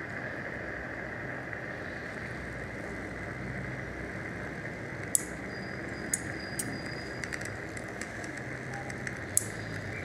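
Steady hiss of a dental suction tip drawing air in the mouth. A few light, sharp clicks of metal surgical instruments come about halfway through and near the end.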